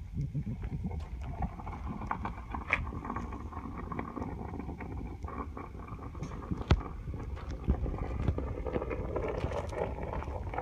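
Molten bronze being poured from a crucible into a casting mold, flames flaring at the mold's mouth: a steady low rumble with scattered sharp crackles and pops, the sharpest about seven seconds in.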